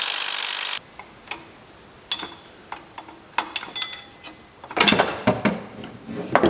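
Hand tools being worked on a car engine: a brief hiss that cuts off suddenly, then scattered metallic clicks, ending in a burst of rapid clicking and clatter.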